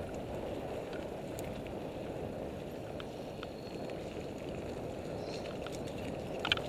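Mountain bike rolling over a dirt and leaf-litter trail: steady tyre noise with small rattles and clicks from the bike, and one sharp clatter about six and a half seconds in.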